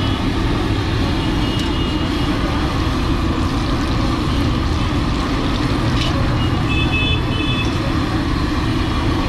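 Samosas deep-frying in a large kadai of hot oil, under a steady low rumble like roadside traffic. Faint short high tones sound twice, once early and once about two-thirds of the way in.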